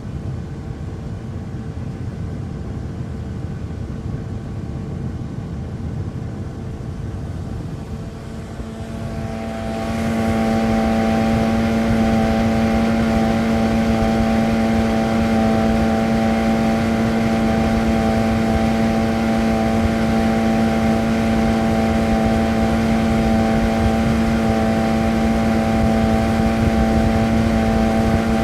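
Motorboat engine running steadily. About ten seconds in it turns louder and holds a stronger, even drone for the rest of the time.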